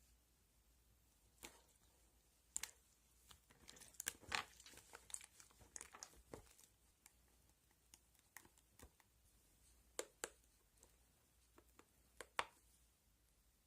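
Faint crinkling and rustling of something being handled, with scattered sharp little clicks, busiest in the middle and a few louder clicks near the end.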